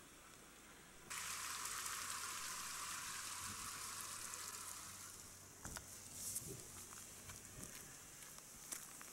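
A steady hiss that starts abruptly about a second in and thins to a faint high hiss after about five seconds, with a few faint clicks near the end.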